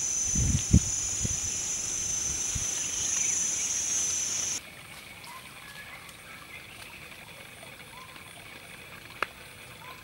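Loud steady high-pitched buzzing of insects, with a few low thumps in the first couple of seconds. The buzzing cuts off abruptly about halfway through, giving way to a quieter forest ambience with a trickling stream and faint bird chirps.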